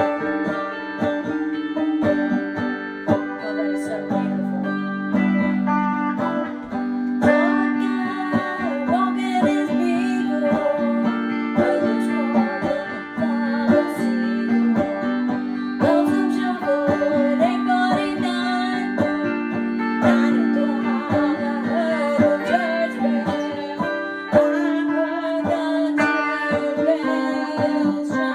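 Electric guitar (a Stratocaster) and an electrified banjo playing together. Quick plucked notes run over a repeating low part.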